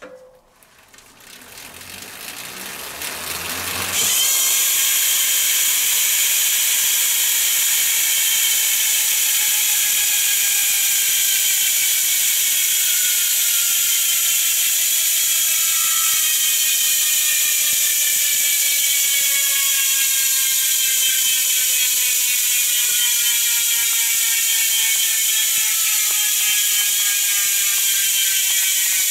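Industry Nine Torch rear hub freewheeling: its pawls click into a 120-point drive ring (3 degrees of engagement) so fast that they make a loud, high, continuous buzz. The sound builds over the first few seconds as the wheel is spun up, jumps to full strength about four seconds in, and then holds steady while its pitch slowly falls as the wheel coasts down.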